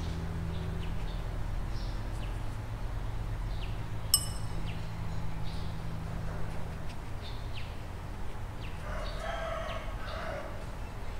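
Small birds chirping now and then, with a rooster crowing near the end. A single light clink comes about four seconds in, and a faint low hum fades out partway through.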